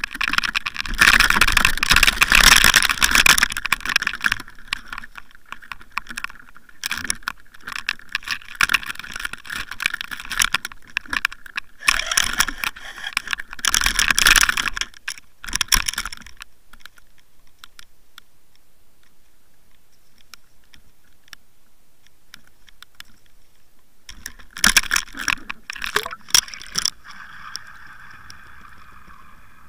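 Underwater fishing camera splashing at the water surface and knocking against the boat and line: loud, irregular clattering and sloshing through the first half, a quiet spell, then another short burst of knocks as it is dropped back in. A faint steady whine follows near the end as the camera sinks.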